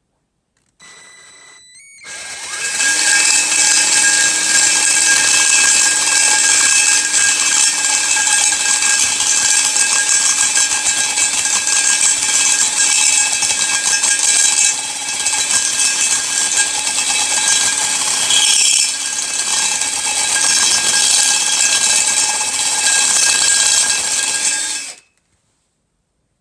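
Electric drill with a reamer enlarging the intake manifold's bolt holes so the bigger bolts fit: a steady high motor whine that comes up to speed about two seconds in, eases off briefly twice, and stops suddenly near the end.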